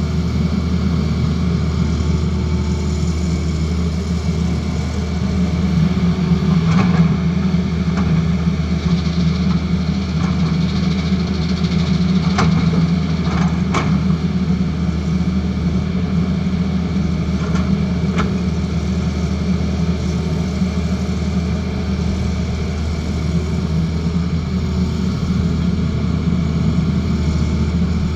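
Diesel engine of a Tata Hitachi Zaxis excavator running steadily, with a few sharp knocks scattered through.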